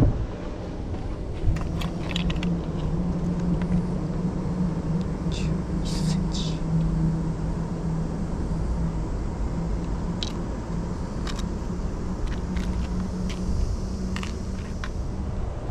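A motor droning steadily under low rumbling wind noise, with a few faint clicks.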